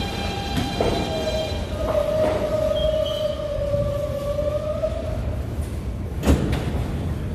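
An NYC Subway R160 train comes to a stop at the platform with a low steady rumble and a single steady whine for several seconds as it slows. A sharp knock sounds near the end once it has halted.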